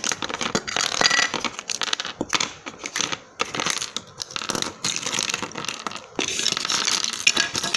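Small plastic toy furniture and accessories clattering and rattling as they are tipped over, dropped and pushed across a wooden tabletop, with brief pauses a few seconds in and again near the end.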